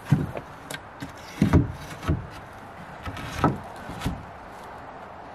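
Wooden board-and-batten siding board knocking against the wall and door frame as it is set into place, about six short knocks in the first four seconds.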